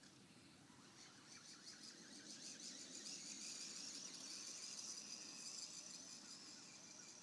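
Faint high-pitched whine of a remote-control toy tractor's motor as it drives across the grass, fading in about a second in.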